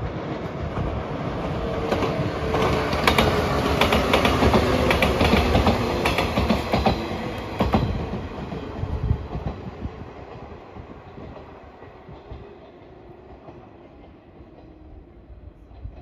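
A 115 series electric train passes with wheels clattering over the rail joints in a run of sharp clicks. The rumble builds, is loudest through the middle, then fades as the train moves away.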